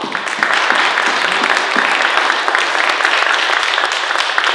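Audience applauding: loud, steady, dense clapping from many hands.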